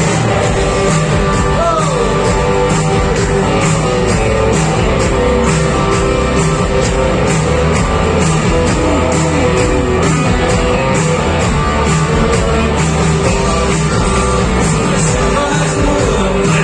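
Live rock band playing loud and steady: electric guitars, bass and drums keeping a regular beat, with a voice singing at times.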